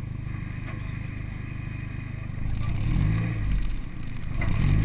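A car engine idling, then revved twice in quick blips from about halfway through, the pitch rising and falling back each time.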